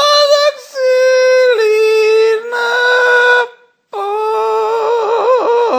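A woman singing loud, long held notes in a few phrases with short breaks; from about four seconds in she holds one note with a wide, wobbling vibrato.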